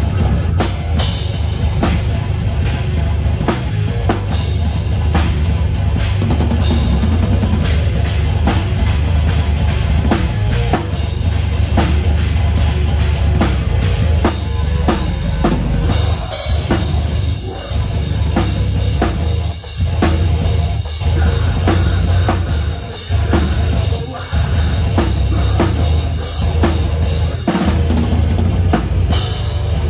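Drum kit played hard in a live rock band, kick drum, snare and cymbals loud over the band's heavy bass. In the second half the band breaks off briefly several times between hits.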